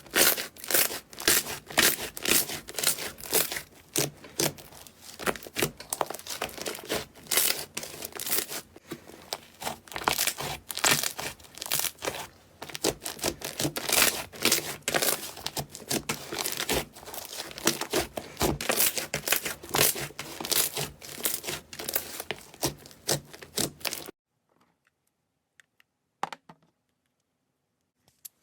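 Slime being squeezed and pressed by hand close to the microphone: dense, quick crackling and popping. It cuts off suddenly near the end, leaving near silence with a few faint clicks.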